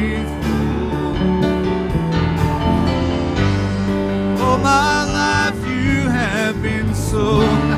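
Live worship band playing a slow song, with a singer's voice coming in about halfway through on a held, wavering line.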